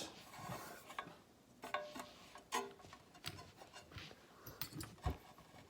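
Faint scattered clicks and light taps, a few with a brief metallic ring, from small parts of an RC buggy drive unit being handled.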